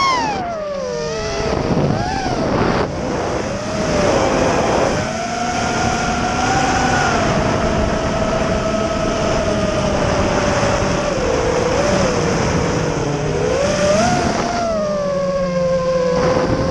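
Racing quadcopter's brushless motors (XNova 2204 on KISS 30A ESCs, 4S) whining. The pitch drops sharply right at the start as the throttle comes off, then wavers up and down with throttle changes, with a brief rise near the end.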